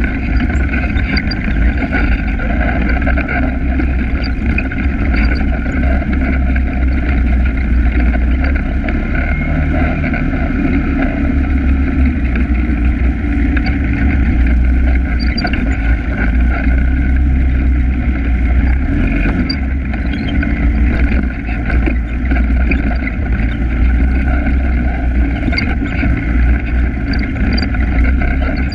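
ATV engine running steadily at trail-riding speed, with no marked revving or change in pace.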